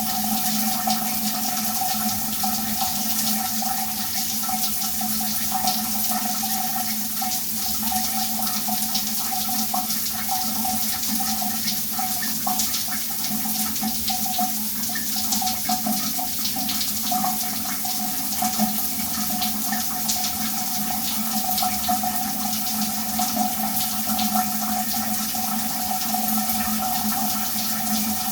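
Shower running steadily, water spraying and splashing without change, with a steady hum mixed into the hiss.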